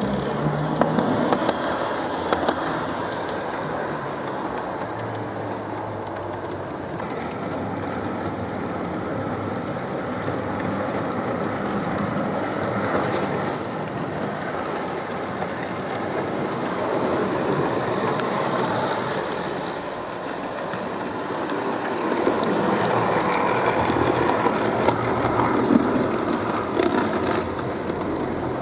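Model railway trains running along the track: the electric motors hum steadily and the wheels rattle and click over the rails as locomotives and wagons pass.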